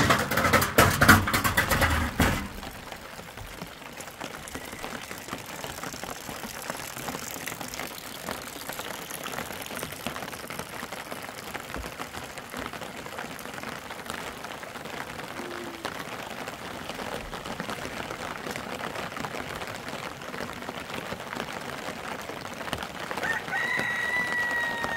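Steady rain hissing down, opened by a loud burst of rattling knocks in the first two seconds. Near the end a rooster crows once, one long held call.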